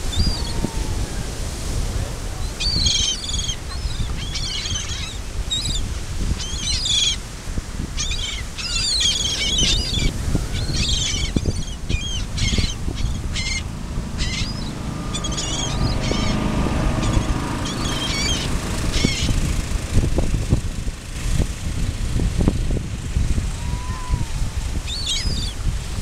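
A flock of gulls calling overhead, many short high cries packed together in the first half and a few more later, over a constant low rumble of wind on the microphone and surf.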